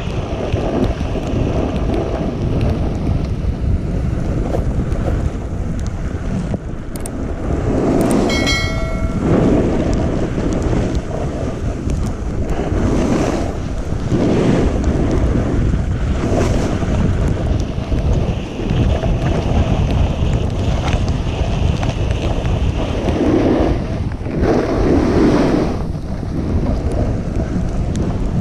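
Wind noise buffeting the camera's microphone while a snowboard slides through deep powder snow, with a swish of sprayed snow every few seconds as the board turns. A brief high-pitched tone sounds about eight seconds in.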